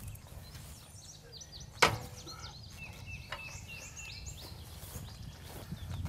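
A single sharp clank with a short ring about two seconds in, from hand work on the steel axle gearbox and drive shaft of a diesel power unit being fitted. Birds chirp through the middle, over a low rumble.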